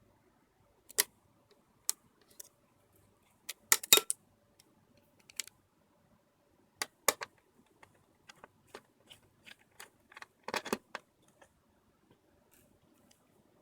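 Scattered sharp clicks and knocks of small laptop parts being handled during a hard drive replacement. There is a cluster about four seconds in, a run of light quick ticks past the middle, and another cluster later on.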